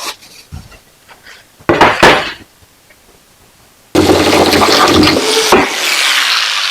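A few light knocks of handling, then an electric power saw starts abruptly and cuts through 1/2-inch plywood for about a second and a half. It is released and winds down, its pitch falling as the blade spins down.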